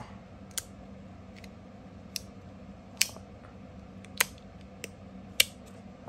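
Stacked magnetic metal slider fidget pieces clicking as they slide and snap together under the magnets: about seven sharp clicks at uneven spacing, the loudest one near the end.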